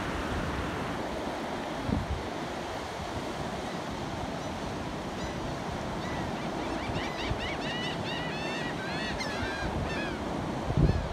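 Ocean surf washing onto the beach in a steady rush. From about halfway through, a bird calls a quick run of short, high chirps, and wind buffets the microphone near the end.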